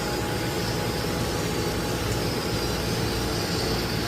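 Boiler room machinery running: a steady mechanical drone with a faint constant hum.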